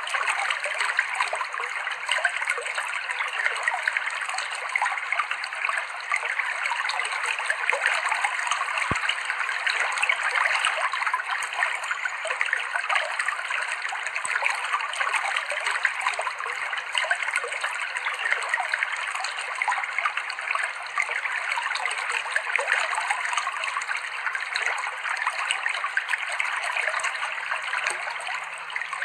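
Clear river water flowing over rocks: a steady, continuous rush of babbling, splashing stream water.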